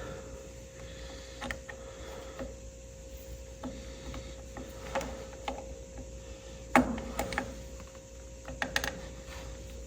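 Scattered small metallic clicks and taps of a screwdriver and loose small parts as screws are worked out of the tractor's distributor to remove the breaker points, over a faint steady hum.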